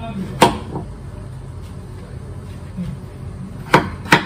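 Kitchen knife cutting through pumpkin and striking the cutting board: three sharp knocks, one about half a second in and two close together near the end, over a steady low hum.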